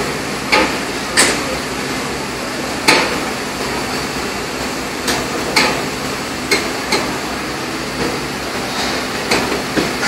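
A steady machinery hum on a busy industrial site, with about ten sharp knocks at irregular intervals, typical of hammer blows on metal.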